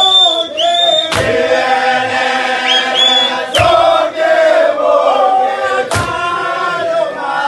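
A group of footballers singing a chant together in unison, with a loud thump about every two and a half seconds, three in all.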